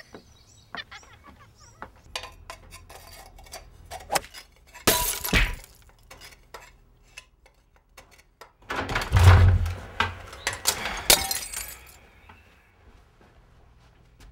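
Hard objects breaking and clattering: a run of clinks and knocks, with loud crashes about five seconds and nine seconds in, the second the loudest.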